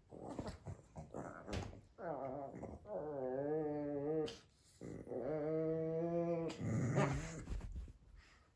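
A Pekingese dog growling in play with another dog. Rough growls give way to two long, droning growls, each about one and a half seconds long: the first rises and then wavers, the second holds steady. The title likens this growl to a motorcycle.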